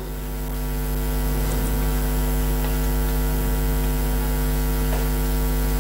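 Steady electrical mains hum: a low, even buzz with a ladder of overtones, loud and unchanging.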